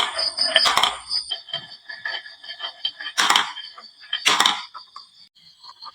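Marbles clicking and rattling down a wooden marble run, with a dense patter of small clicks at first, then a few separate louder clacks about a second apart as single marbles strike the track or the toy trucks.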